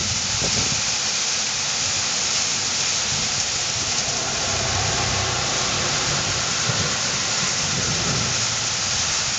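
Heavy downpour of a hailstorm: dense, steady hiss of rain pelting the street and trees. A low rumble runs underneath, stronger in the middle and near the end, where a vehicle drives through it.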